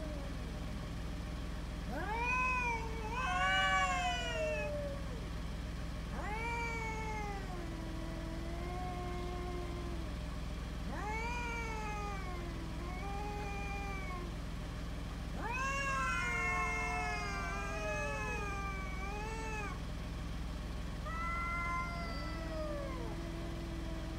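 Two street cats yowling at each other in a territorial standoff: a string of long, wavering howls that rise and fall in pitch, with the two voices overlapping in the middle.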